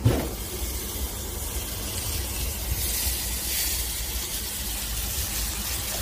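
Chicken pieces sizzling in a Happycall double-sided grill pan: a loud, steady hiss over a low rumble, with a brief knock right at the start.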